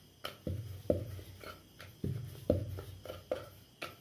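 Wooden rolling pin rolling dough out on a wooden board: a low rumble with each stroke, broken by sharp knocks of the pin on the board about twice a second.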